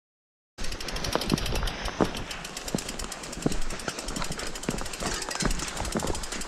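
Mountain bike being ridden down a dirt forest trail, heard from a camera mounted on the bike: a continuous clatter and rattle of the bike jolting over the ground, with rapid irregular knocks over a low rumble. It starts abruptly about half a second in.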